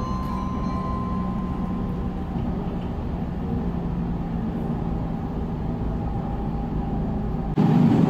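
Running noise inside a JR Central 313 series 8000 subseries electric train car: a steady rumble with a low steady hum. A higher tone fades out in the first second or two. Near the end the sound jumps abruptly louder.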